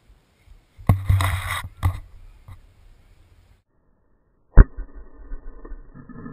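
Dry ice bombs bursting: plastic jugs blowing apart with a sharp bang and a spray of water. One goes off about a second in, with a hiss of spray and a second crack; a louder, duller bang follows near the end, with water spattering down after it.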